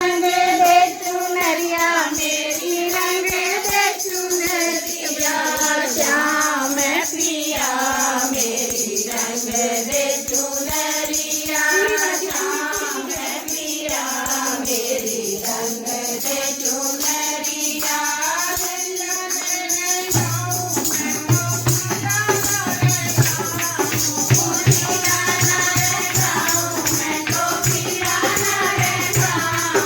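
A Hindi devotional bhajan being sung, the melody bending and gliding in pitch. A steady low accompaniment comes in about twenty seconds in.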